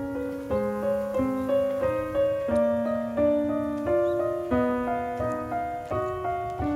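Background music: gentle piano playing a steady run of held notes, changing about every half second.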